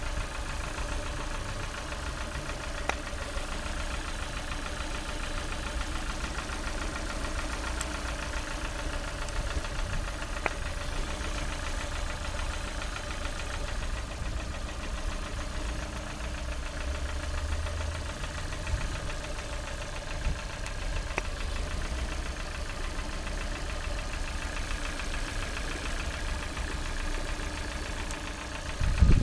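Lada Priora's four-cylinder petrol engine idling steadily with a knock, which the owner cannot place as piston knock or hydraulic lifter knock.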